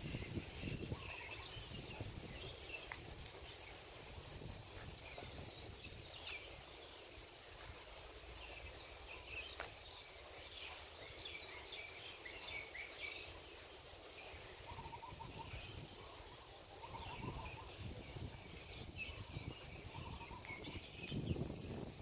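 Several birds chirping and calling, with a quick trilled phrase repeated a few times in the second half. Low rumbling on the microphone at the start and again near the end.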